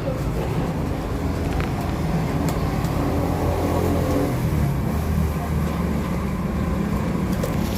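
A motor vehicle's engine running steadily with a low, continuous rumble.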